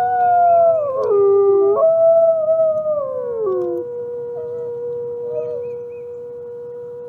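Wolves howling together, two or more long overlapping howls that hold and glide down in pitch. About four seconds in, the others stop and one low, steady howl carries on, fading away near the end.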